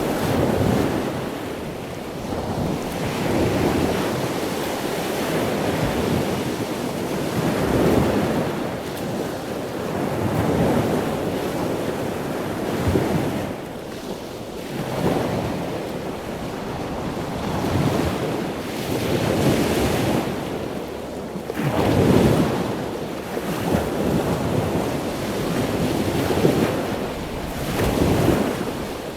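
Ocean surf: waves washing in and breaking, the rush of water swelling and falling back every few seconds.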